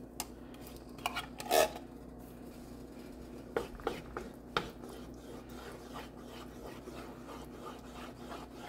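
A spoon scraping thick condensed soup out of a can over a pan, with several clinks and taps in the first couple of seconds, then a wooden spatula stirring a thick cream sauce in the pan. A steady low hum runs underneath.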